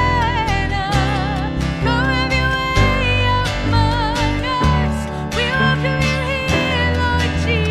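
Live contemporary worship music: a band with guitar and strong bass playing a song, with a sustained melody line that wavers in pitch.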